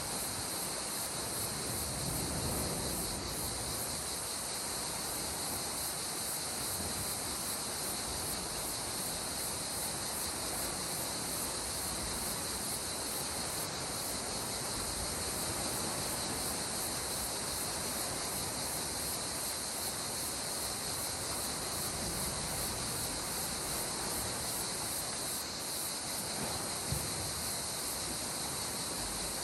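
Calm sea water washing gently with soft low swells, under a steady high-pitched hiss.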